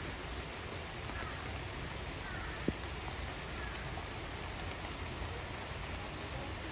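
Steady hiss of heavy rain, with one sharp click a little under three seconds in.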